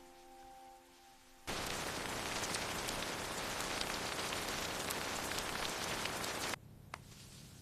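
Rain falling on a surface, a dense hiss with scattered drop ticks. It starts abruptly about a second and a half in and cuts off suddenly about a second before the end, after the last notes of a piano fade out.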